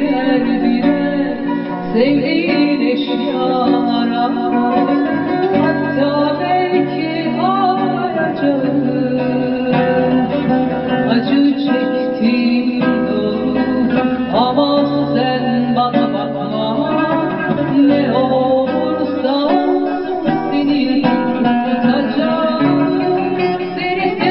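Bağlama (long-necked Turkish saz) playing a plucked melody, with a voice singing over it in a gliding, ornamented line.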